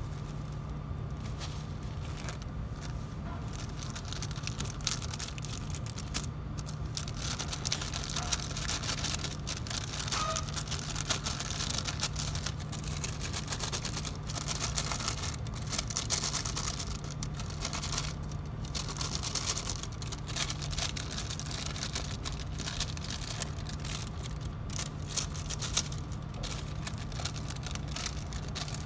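Paper and plastic bags rustling and crinkling as they are handled and folded, over a steady low hum.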